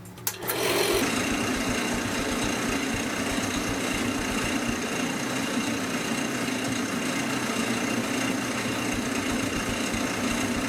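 Wood lathe switched on about half a second in, spinning up quickly and then running steadily with an even hum and a thin high whine, turning a paint-covered canvas mounted on it.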